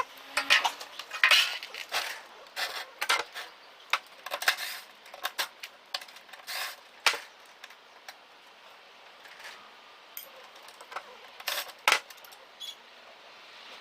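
Metallic clinks, clicks and knocks of an old microwave oven's sheet-metal casing and parts being handled and taken apart, irregular and busier in the first half.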